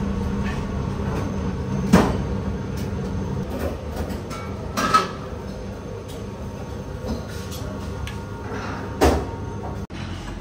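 Restaurant kitchen clatter: three sharp knocks of dishes and utensils, about two, five and nine seconds in, over a steady low hum.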